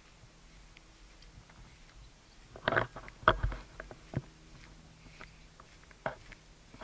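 A handful of sharp, irregularly spaced clicks and knocks, clustered a little under halfway through with one more near the end, over a faint steady background.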